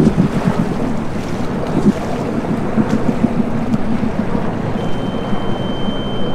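Sea-Doo Spark Evo personal watercraft running as it pulls away across the water, its engine and jet a steady rumble, with wind buffeting the microphone.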